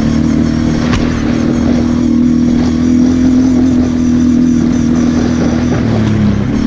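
Kawasaki KFX 700 quad's V-twin engine running at a steady pitch while riding, dipping briefly as the throttle eases near the end. A single sharp click about a second in.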